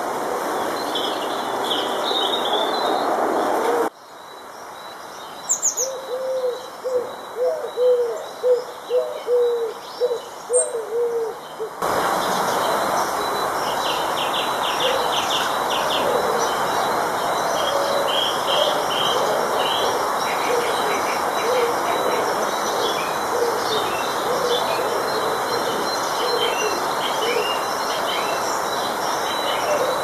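Garden birds calling over a steady background hiss: short, high chirps from small birds throughout. In the middle, while the background drops away for several seconds, a run of about a dozen low hooting calls comes at roughly two a second.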